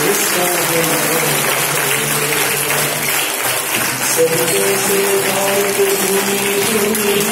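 Music of a Hindi patriotic song with long held notes, mixed with steady applause.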